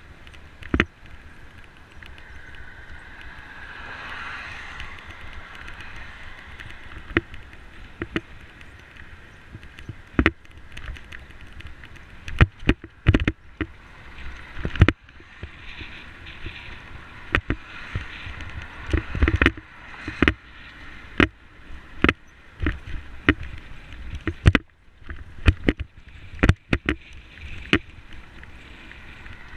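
Bicycle riding over a cracked concrete path, with many irregular sharp knocks and rattles as the bike and camera jolt over bumps, more frequent in the second half, over a steady rushing wind and tyre noise.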